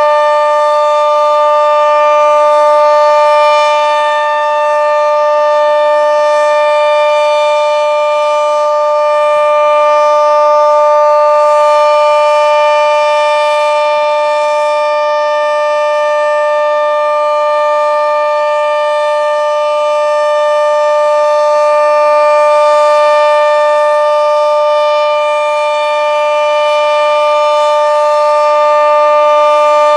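Sentry 40V2T two-tone mechanical outdoor warning siren sounding its steady full-alert signal: two held pitches together, very loud. The sound swells and fades about every six seconds as the horn rotates.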